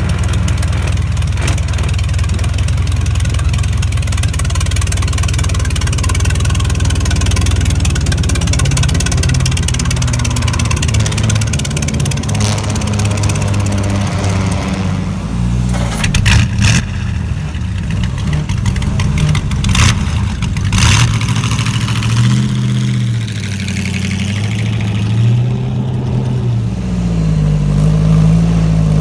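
Vintage racecar engine running, revved up and down and falling back toward idle, with a few sharp pops midway through.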